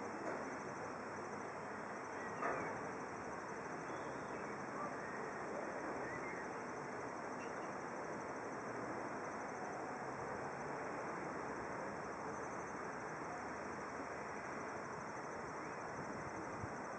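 Steady outdoor background noise with a few faint bird chirps in the first half.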